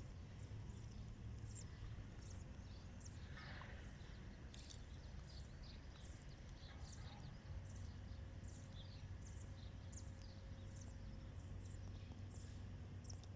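Faint outdoor ambience: many short, high chirps of small birds over a low, steady rumble.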